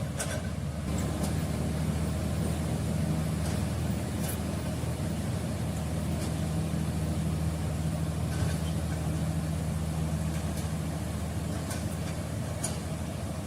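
Komatsu D85E-SS bulldozer's diesel engine running steadily, a little louder from about a second in.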